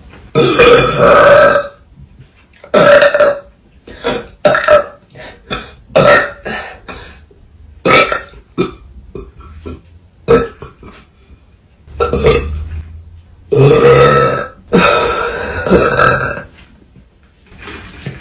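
Women burping, one after another: well over a dozen loud burps. A few are long drawn-out belches of a second or more, near the start and again in the second half, with many short quick burps in between.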